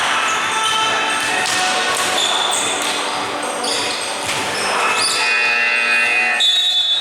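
Indoor basketball game: a basketball bouncing on a hardwood court, with high sneaker squeaks on the floor, echoing in a large gym.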